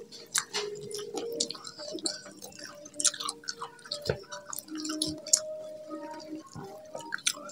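Close-up eating sounds: wet chewing and lip smacks, with scattered soft clicks as fingers pick rice and chicken off banana leaves.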